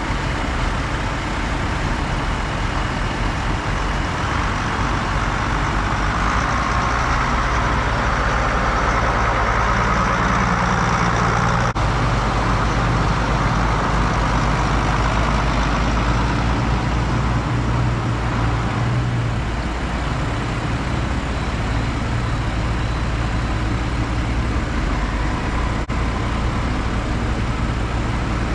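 Heavy farm machinery engine running steadily, with a rushing noise that swells about six seconds in and fades after about twelve.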